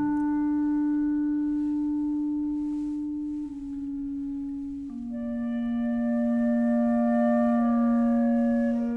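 Slow classical music of long held notes. The notes change about three and a half seconds in, and more instruments join in a fuller chord at about five seconds.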